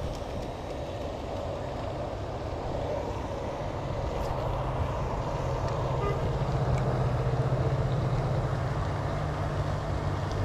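A motor engine droning steadily, growing louder from about four seconds in.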